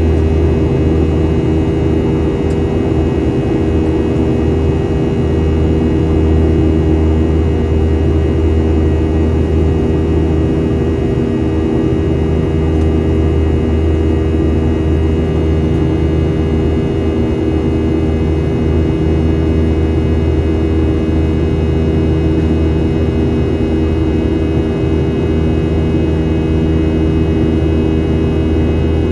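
Boeing 737-800's CFM56-7B turbofan engines during the climb, heard inside the cabin from a window seat by the engine. It is a steady, loud drone: a low rumble with several steady hum tones layered over it.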